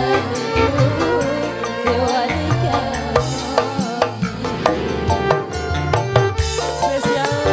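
Live modern qasidah band music: hand drums keeping a steady beat under keyboard and electric bass, with a woman's singing voice.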